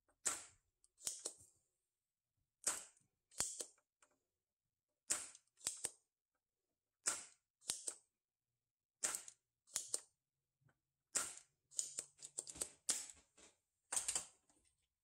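Spring-loaded desoldering pump (solder sucker) cocked and fired again and again, each stroke a sharp snap with a short rush of air, mostly in pairs about every two seconds and several in quick succession near the end, as it sucks molten solder out of circuit-board holes.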